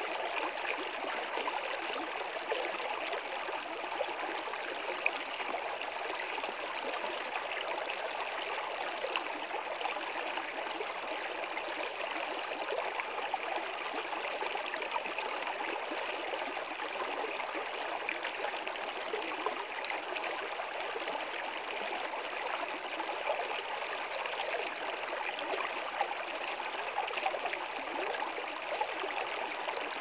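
Shallow stream running fast over rocks: a steady, even babble of flowing water.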